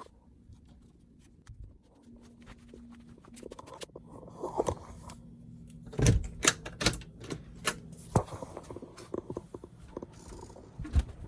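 Scattered knocks and clicks of objects being handled, busier about six seconds in, with a faint steady hum in the background partway through.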